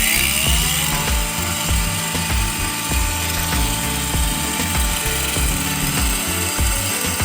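Electric power tool motor spinning up over about the first second, then running at a steady pitch, over background music.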